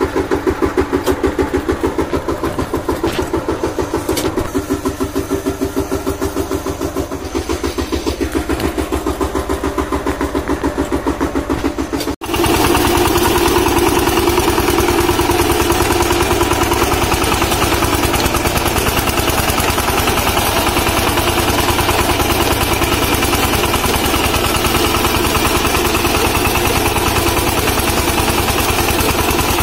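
VST Shakti 130 DI power tiller's single-cylinder diesel engine running steadily with an even, rapid firing beat. About twelve seconds in the sound jumps louder as the tiller works its rotary tines through the soil.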